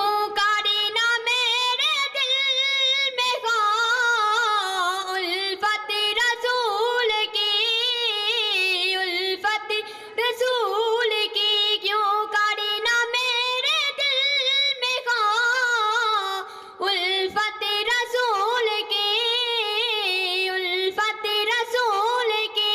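A boy singing a naat unaccompanied into a microphone, in a high voice with long, wavering, ornamented held notes and short breaks between phrases.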